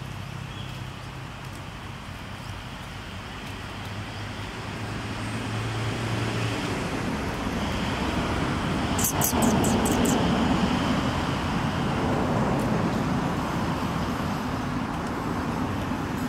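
A motor vehicle passing, its traffic noise swelling to its loudest about ten seconds in and then fading slowly, over a low steady hum that stops about halfway. A quick run of about five high chirps near the peak.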